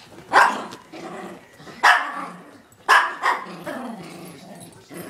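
Yorkshire terriers play-barking in rough play: four sharp, loud barks, the last two close together.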